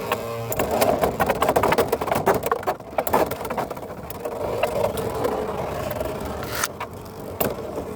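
Two Beyblade X spinning tops whirring in a plastic stadium, with a steady hum and rapid clacks as they clash and scrape against each other and the walls. The clacking is densest in the first few seconds, and a few sharper hits come near the end.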